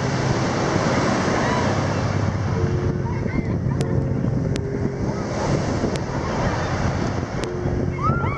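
Surf breaking and washing up a sand beach, with wind buffeting the microphone; a low steady hum runs underneath.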